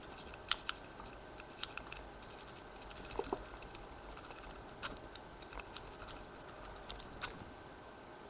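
Faint, irregular metallic clicks and light scrapes of a Bogota rake being worked in the keyway of a Chateau C99X disc padlock, raking the pins.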